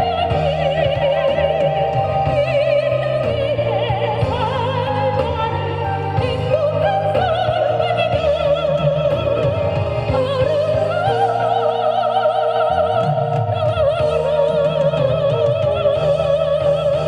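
A singer with strong vibrato over instrumental backing, closing the song on a long held note.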